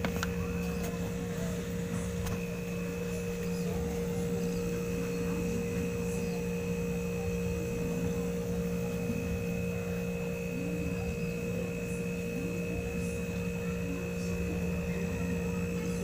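Wansheng QD43H hermetic refrigerator compressor running with a steady, even hum and a faint high whine. It starts and runs normally, showing the compressor is sound: the fault was its start relay and overload protector.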